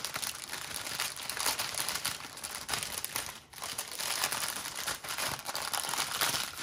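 Clear plastic packaging of a diamond painting kit crinkling and rustling as it is handled, with a brief lull about three and a half seconds in.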